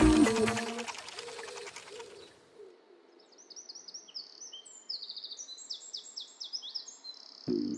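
Music fades out over the first couple of seconds, then a songbird sings a string of quick high chirps and trills. A brief low sound comes near the end.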